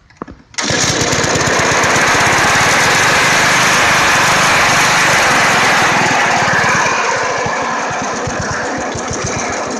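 Hand-cranked antique walk-behind lawnmower engine catching about half a second in and running steadily with a fast, even firing beat.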